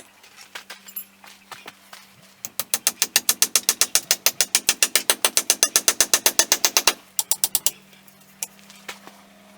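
Hammer driving a forged 1/4-inch square-stock steel drive hook into a wooden post: a fast, even run of sharp blows, several a second, for about four and a half seconds, with a few scattered taps before it and a few after.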